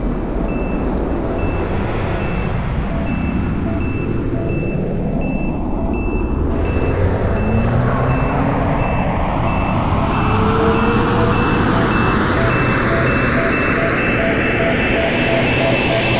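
Regular electronic beeps on two pitches, evenly spaced, over a rising sound-effect sweep that climbs steadily in pitch and swells slightly.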